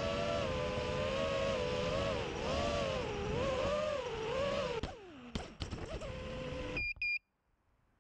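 A 5-inch FPV racing quadcopter's brushless motors and props whine steadily, the pitch wavering up and down with throttle. About five seconds in the pitch falls away as the throttle is cut, a few clatters follow as it comes down, and the motors hum at a steady idle. Two short high beeps sound near the end, then the sound cuts off.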